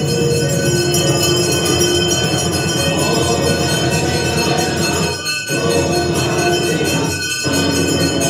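Temple arati music dominated by rapid, continuous metallic ringing of bells and hand cymbals, a dense clangour with sustained ringing tones. It dips briefly twice in the second half.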